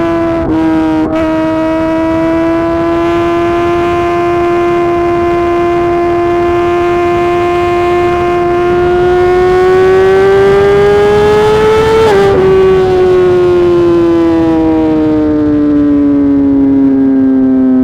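A 2018 Suzuki GSX-R 1000 R inline-four engine running through a full titanium SC-Project exhaust. It holds steady revs, with two brief stutters near the start, and the pitch climbs gradually until about twelve seconds in. Then the revs fall steadily as the bike slows.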